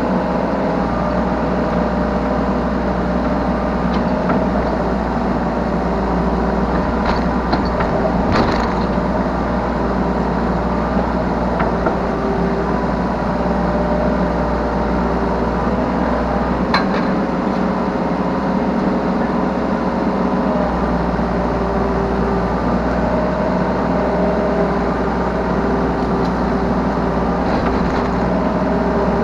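Yanmar B3Σ 3-tonne mini excavator's diesel engine running steadily under work, heard from the operator's seat, with a pitched whine that shifts as the machine works. A few sharp knocks stand out about a quarter of the way in and again just past halfway.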